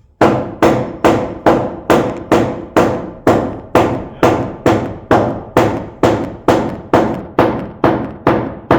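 Hammer driving nails into a metal joist hanger on a 2x12 floor joist: a steady run of evenly spaced blows, about two and a half a second, without a pause.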